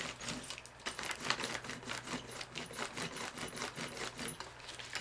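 A sheet of paper rubbed and crinkled by hand as wet acrylic paint is wiped off it: quick, rapid rustling strokes that stop about four and a half seconds in.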